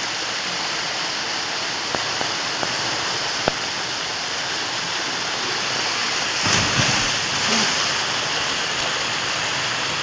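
Steady rush of a waterfall pouring over a rock chute, with a louder splash about two-thirds of the way through as a person slides down the chute into the pool.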